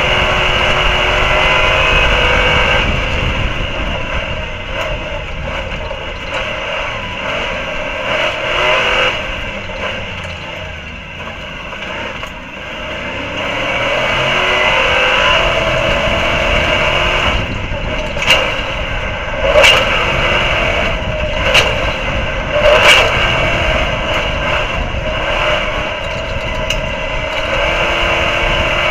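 Stadium Super Truck's V8 engine racing flat out as heard onboard, its pitch rising and falling with the throttle and gear changes, easing off for a few seconds in the middle before pulling hard again. Several sharp knocks come in quick succession past the halfway point.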